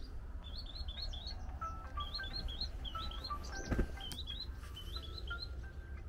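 Songbird singing: short groups of three to five quick, hooked whistled notes, repeated several times, with flat steady tones lower down, over a steady low rumble. A brief thump about halfway through is the loudest sound.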